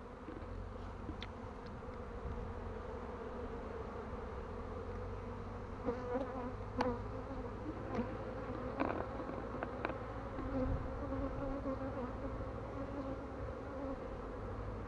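Honeybees buzzing in flight around the hive entrances: a steady hum that swells now and then as single bees pass close.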